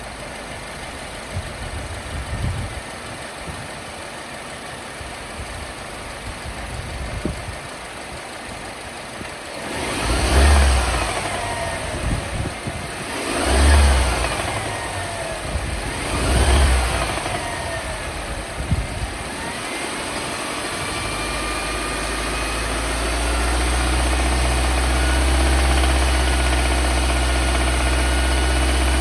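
Mercedes-Benz W204 C-Class engine idling, revved up and back down three times, then running steadily again. It carries the warm-engine rattle (kata-kata) that the owner cannot place, suspecting the tappets, cam chain or con-rod bearings.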